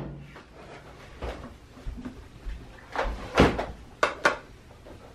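A few scattered household knocks and clunks, like cupboards or drawers being handled. The loudest comes a little over three seconds in, followed by two sharp clicks close together.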